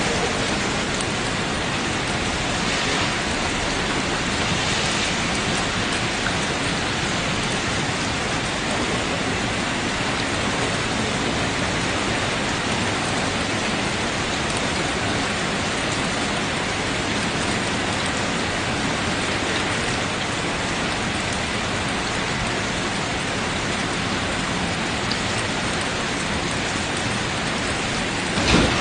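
Steady rain falling, an even hiss that keeps up without let-up. A louder, rougher noise cuts in right at the end.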